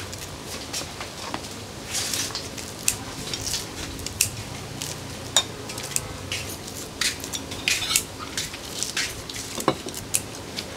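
Eating utensils clinking and tapping against bowls and plates as people eat, in scattered sharp clicks at irregular intervals.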